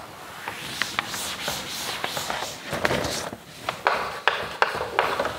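A cloth rubbing across a chalkboard in repeated swishing strokes as the board is wiped clean. In the second half, chalk writing on the board with short sharp taps and scratches.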